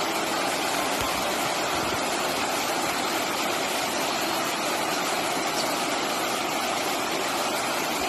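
River white water rushing over a step in the riverbed: a steady, even rush.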